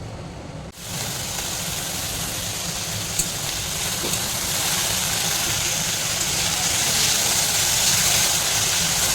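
Food sizzling in hot cooking oil in a pan. The sizzle starts suddenly about a second in and runs as a steady hiss with a single pop, growing slightly louder toward the end.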